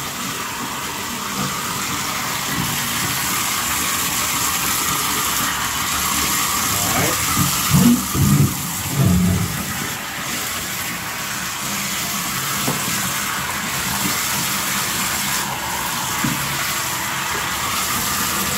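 Bathtub faucet running steadily, water pouring and splashing into a glass aquarium as it is rinsed out. A few brief, louder low sounds come about eight to nine seconds in.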